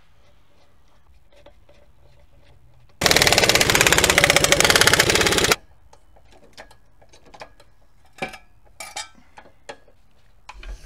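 Impact wrench running the lug nuts onto a car wheel: a loud rapid rattle starting about three seconds in and lasting about two and a half seconds. It is followed by scattered metallic clicks and clanks from a floor jack handle being worked.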